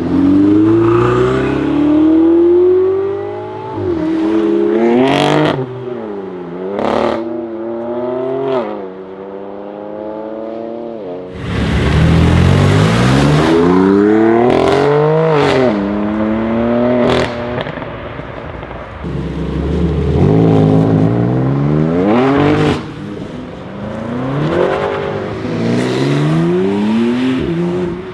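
BMW M4 F82's twin-turbo straight-six through a titanium Akrapovic exhaust, accelerating hard several times, its note climbing and dropping back at each gear change. Sharp exhaust crackles and pops come between the pulls.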